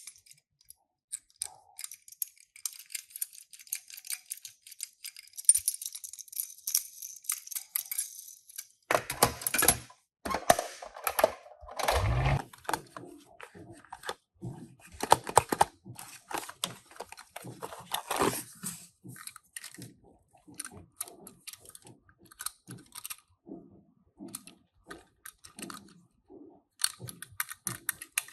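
Die-cast Tomica toy cars and their packaging being handled: a run of small clicks and rattles, with rustling through the middle stretch and a dull thump about twelve seconds in.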